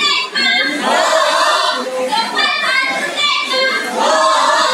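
A woman's loud voice performing on stage, carrying with the echo of a large hall.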